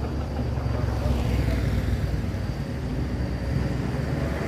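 Motorbike engine running on the road, a steady low hum that swells slightly about a second in.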